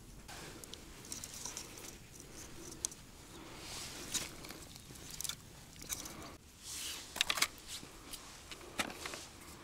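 Soft handling noises of ice-fishing gear: scattered light clicks and brief rustles as a baited line and reel are worked over the hole and a bucket of tackle is rummaged.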